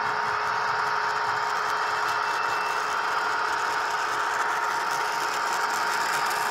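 Broadway Limited Imports N scale SD40-2 model locomotive running under heavy load, hauling 11 tank cars up a 2% grade. It gives a steady whine over the rattle of its wheels on the track.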